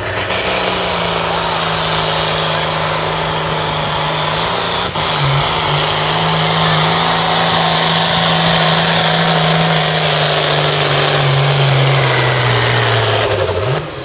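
Turbocharged diesel farm tractor at full throttle pulling a weight-transfer sled, the engine running hard and steady under heavy fuelling with a high turbo whistle above it. There is a brief dip about five seconds in, and the engine note falls away just before the end as the pull finishes.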